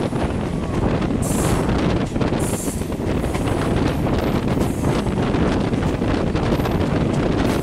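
Wind buffeting the microphone over the steady rumble of a moving electric passenger train, heard from the side of a coach. A couple of brief high hisses come in the first three seconds.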